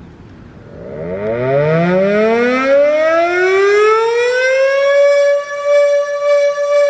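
Outdoor warning siren winding up: its pitch starts low about a second in and rises steadily for about four seconds, then holds at one loud, steady high tone.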